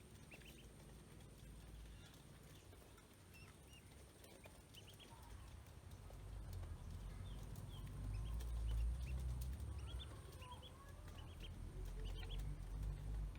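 Ducklings peeping in short high calls, scattered through, over a low rumble that grows louder about halfway through.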